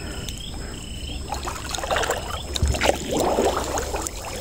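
Water splashing and sloshing in irregular bursts as a gill net is hauled by hand through shallow water, growing louder after about a second.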